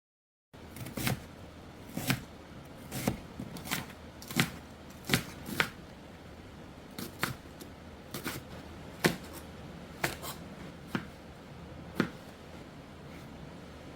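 Food being cut in a kitchen: sharp cutting strokes, irregularly spaced at about one or two a second, starting about half a second in.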